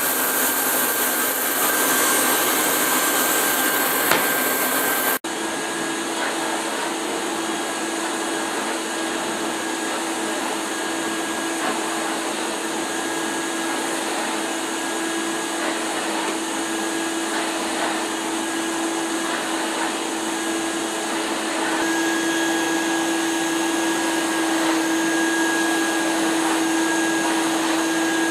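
1988 Hoover Sensotronic System 20 cylinder vacuum cleaner running steadily, a constant motor whir with a steady hum and a higher whine. There is a brief break about five seconds in, and the sound grows slightly louder and higher about 22 seconds in.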